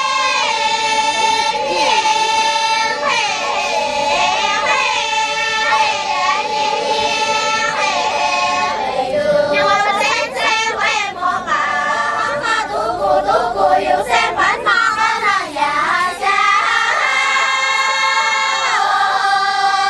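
A choir of girls singing together in parts: one long held note sounds under other voices that glide and move above it. A quicker, choppier passage comes in the middle, and the held note returns near the end.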